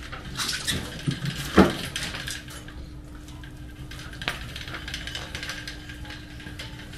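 Clanks and knocks from a small Monkey-style motorcycle being pushed by hand with its engine off, with a sharp knock about a second and a half in and another a little past four seconds, over a faint steady hum.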